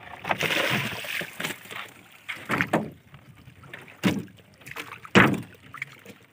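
A wet fishing net being hauled over the side into a small wooden boat: water splashing and the net rustling, with irregular knocks and thumps on the wooden hull, the loudest about five seconds in.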